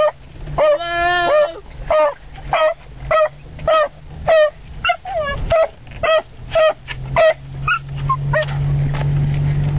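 Dog barking repeatedly, about two sharp barks a second, after one drawn-out whining howl about a second in. A steady engine hum from the truck runs underneath.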